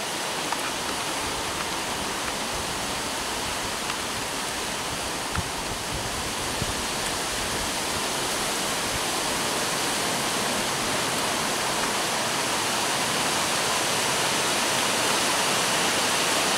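Steady rushing background noise, even and unbroken, growing slightly louder over the stretch.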